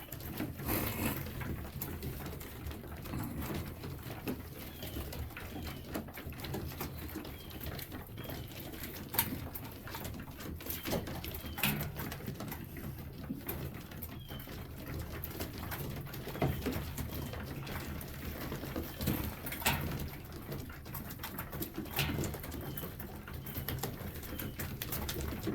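Domestic pigeons cooing continuously in a small loft, with scattered short clicks and knocks among them.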